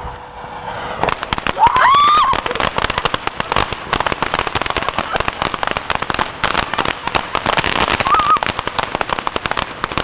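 Small firework crackling, a rapid, dense run of small pops that starts about a second in and keeps going. A person cries out once about two seconds in.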